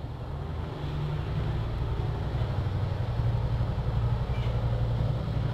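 Small single-cylinder Honda CG motorcycle engine running steadily at low revs as the bike rolls slowly into a garage, with a slight rise in level after the first second.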